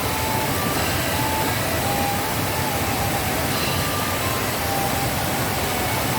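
Steady rushing of a waterfall in full rainy-season flow, water pouring over rock tiers.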